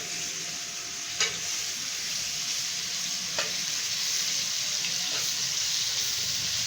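Marinated chicken pieces sizzling in hot ghee on a tawa griddle: a steady frying hiss with a few sharp crackles.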